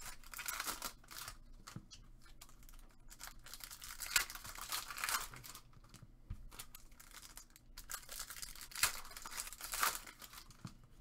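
Trading card pack wrappers being torn open and crinkled by hand, with cards shuffled in between: irregular rustling and tearing.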